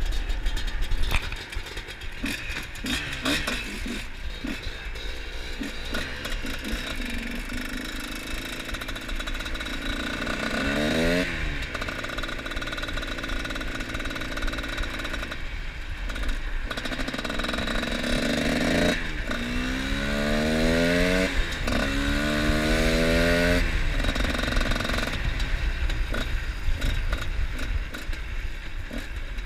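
Two-stroke trail motorcycle engine running and being revved, its pitch climbing once about a third of the way in and then in several quick rising sweeps in the second half, with some clattering knocks in the first few seconds.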